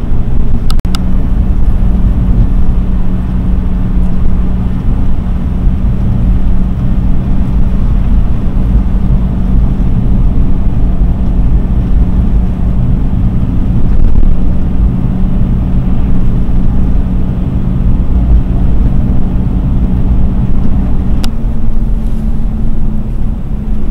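Mercedes-Benz W126 driving on the highway, heard from inside the cabin: a steady low engine hum over tyre and road rumble. There is a click about a second in and another near the end, after which the engine note steps up slightly.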